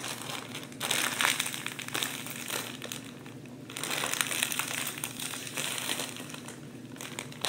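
A clear plastic zip-top bag stuffed with cotton balls crinkling as a hand squeezes and kneads it. The crinkling comes in two spells, with a short lull about three seconds in.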